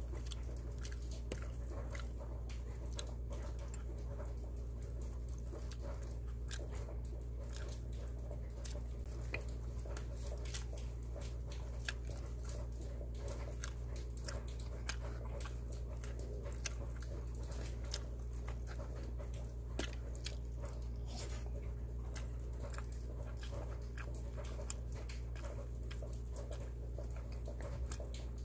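A man chewing pizza with his mouth close to the microphone, giving many small wet clicks and smacks, over a steady low hum.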